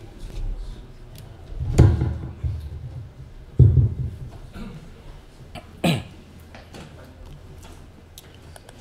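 Handling noise from a desk microphone being adjusted by hand: three bumps, about 2, 3.5 and 6 seconds in, the first two heavy and low and the third a short sharp click.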